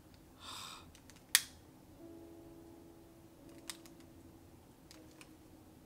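A long-neck utility lighter clicking as it is struck to relight a candle inside a glass jar: one sharp click about a second and a half in, then a few faint clicks. Faint background music runs underneath.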